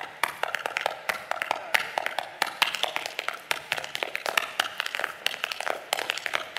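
Tap shoes' metal taps striking a hard stage floor in a fast, irregular solo tap rhythm, unaccompanied by music.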